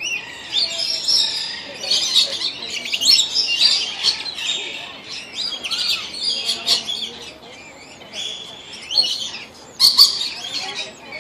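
A flock of rainbow lorikeets calling, with many shrill, chattering calls overlapping and louder bursts about three seconds in and again near ten seconds.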